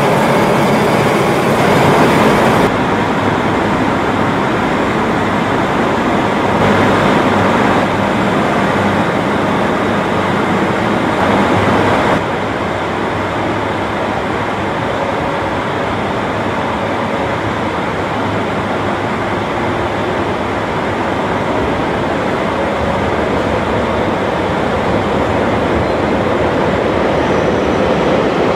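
Steady running noise of a KiHa 40 diesel railcar standing at the platform with its engine idling. The sound changes abruptly in level a few times, about 3, 7 and 12 seconds in.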